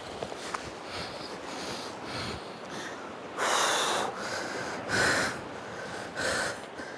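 A man's forceful, straining breaths, three loud ones about halfway through and later, over steady wind and surf, as he pulls against a large fish on a big-game rod.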